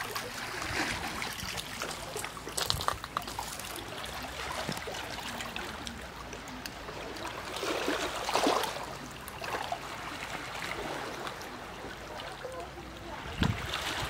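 Small waves from a calm sea lapping at a pebble and rock shoreline, water trickling among the stones, with a larger wash about eight seconds in.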